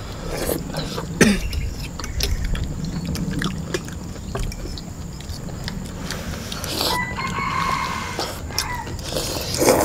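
People eating noodles together: slurping, chewing, and forks and spoons clicking and scraping on a ceramic plate, with a loud slurp near the end. About seven seconds in, a held pitched sound lasts a second and a half.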